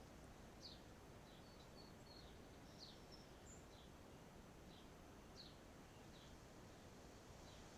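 Faint bird chirps: short, high notes that slide downward, coming irregularly about once or twice a second over a quiet outdoor hiss.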